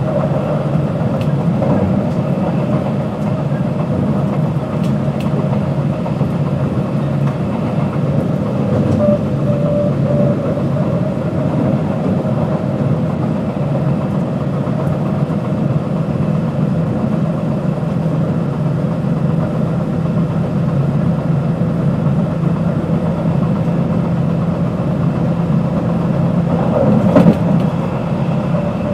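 JR West 221 series electric train with field-added excitation control running between stations, heard from inside the car: a steady rumble of wheels on rail with a low motor and gear hum. A single sharp clunk comes near the end.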